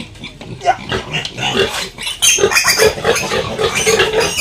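Piglets squealing, louder and more constant from about halfway in.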